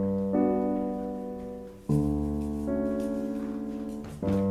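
Background piano music: slow chords, each struck and left to fade, with a new chord every second or two.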